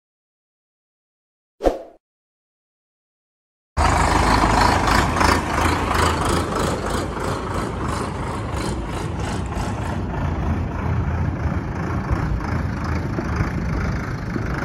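Near silence with one short click, then a tractor diesel engine cuts in suddenly and runs steadily as the Sonalika DI-55 tractor drives with its chain trencher mounted, with an even rhythmic pulsing through the first several seconds of the engine sound.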